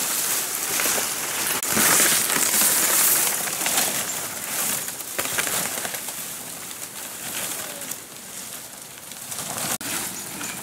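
Dry fan-palm fronds rustling and scraping as they are dragged through dry leaf litter, mixed with footsteps crunching on the dead leaves. The rustling is loudest a couple of seconds in, then softer.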